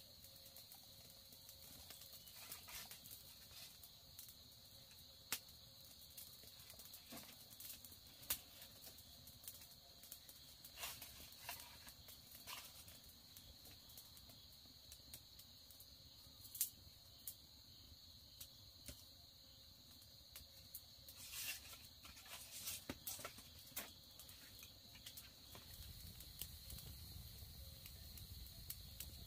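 Faint steady high-pitched insect drone, with scattered light clicks and knocks.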